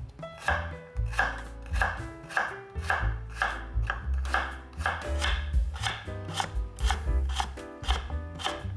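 Kitchen knife chopping vegetables on a cutting board, in a steady rhythm of about two to three cuts a second.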